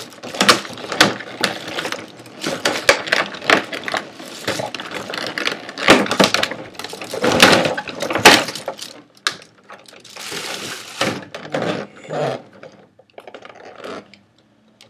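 Clear plastic blister tray and wrapping being handled and pulled apart, crinkling and crackling in a rapid, irregular run of snaps that dies down in the last couple of seconds.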